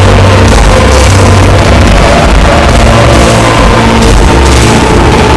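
Loud music playing back from a layered video edit, several stacked clips sounding at once so the track is crowded and near full volume.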